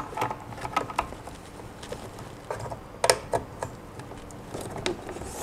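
Small plastic clicks and rattles of an Ethernet cable being handled, fed through a cable gland and plugged into a port on an outdoor PoE switch, with a sharper cluster of clicks about three seconds in.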